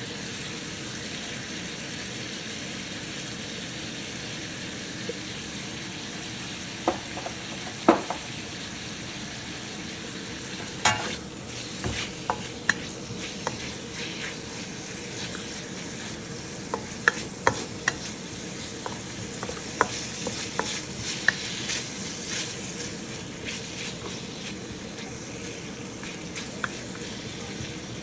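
Chopped bacon frying in a wok with a steady sizzle. From about a quarter of the way in, a wooden spatula stirs it, with scattered taps and scrapes against the metal pan, most of them in the middle stretch.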